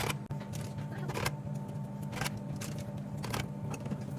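Drink cans and bottles knocking and clicking as a vending machine's slots are restocked by hand, a short knock every second or so, over a steady mechanical hum.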